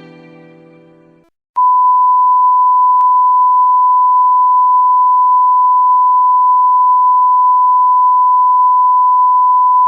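A string-music chord fades out in the first second or so. After a short gap, a loud, steady, pure beep tone starts and holds unbroken: the censor bleep sound effect used in video editing.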